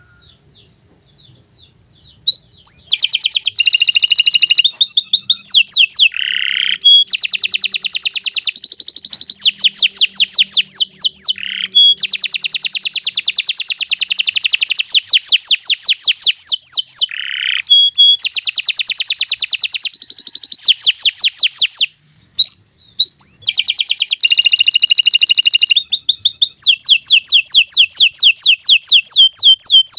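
Domestic canary singing a long, loud song of rapid trills and rolls, its notes repeating many times a second in high, fast runs. The song starts about two and a half seconds in and breaks off briefly about three quarters of the way through.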